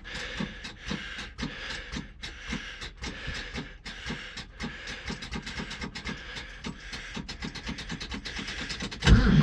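Cold forklift engine cranking over on its starter, run off a booster pack because the battery won't do it alone. The steady chug of the compression strokes quickens from about three to about five a second. Near the end the engine catches and fires up.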